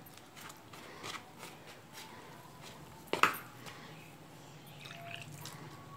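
A bare hand mixing and squeezing moist rice-flour dough in a bowl: faint soft squishing and rubbing, with one sharp knock about three seconds in.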